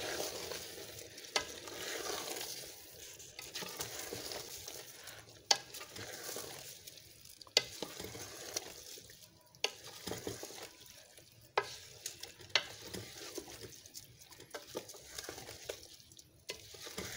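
A wooden spoon stirring rice into hot, steaming broth in a large metal pot, the liquid sizzling. Sharp knocks of the spoon against the pot sound every couple of seconds.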